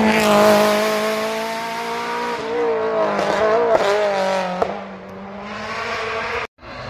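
Rally car engine at full throttle, its note dipping and climbing with several quick gear changes, then fading as the car moves away. The sound cuts out for a moment near the end.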